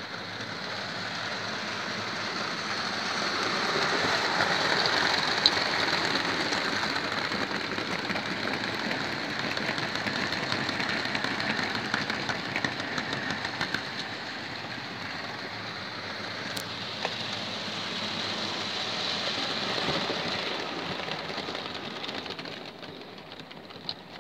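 Electric model train with Christmas wagons rolling around the layout, its wheels running on the rails as a steady rushing rattle. It swells as the wagons pass close by, about four to six seconds in and again near twenty seconds, then fades away near the end.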